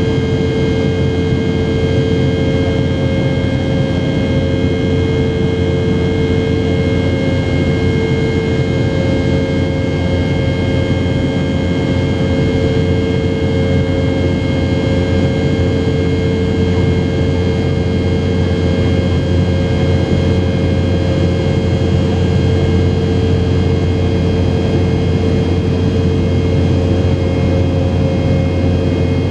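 Cabin noise inside a Boeing 717 in the climb: the steady drone of its rear-mounted Rolls-Royce BR715 turbofans, with a constant low hum and a few steady whining tones over airflow noise.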